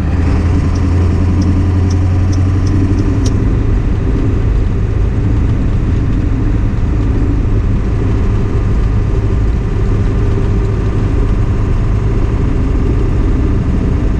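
A 1997 Ford F-350 pickup's engine running steadily, with a few light high ticks in the first three seconds.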